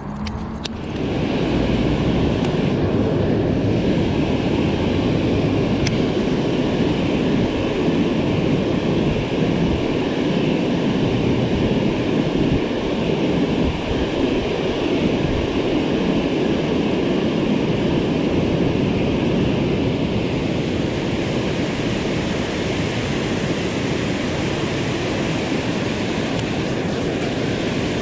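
Water rushing steadily over a low stepped waterfall, a loud even noise that comes up about a second in and holds without change.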